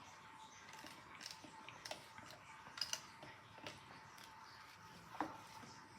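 Faint eating noises in a quiet room: a few small, scattered clicks and taps.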